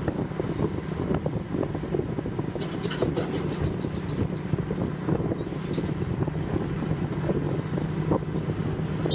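Road vehicle driving along at a steady pace, heard from on board: an even engine hum with road rumble.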